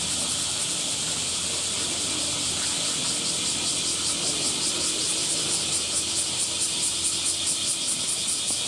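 A steady, high-pitched cicada chorus that pulses about five times a second.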